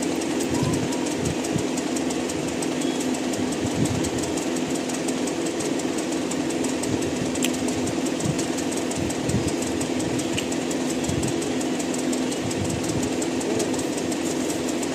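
A steady mechanical hum with a fast, even rattle running under it, unchanging throughout.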